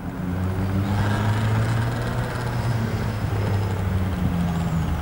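Single-engine light aircraft, a Piper PA-28-181 Archer II with its four-cylinder Lycoming O-360 piston engine and propeller, droning steadily at an even low pitch.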